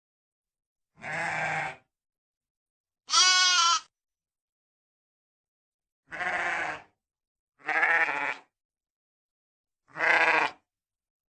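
Sheep bleating: five separate bleats, each under a second, with silent gaps between them.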